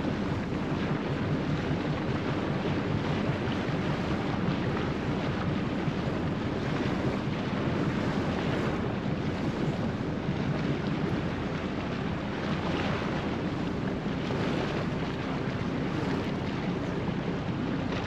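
A boat under way at sea: a steady engine drone mixed with the rush of water along the hull, and wind buffeting the microphone.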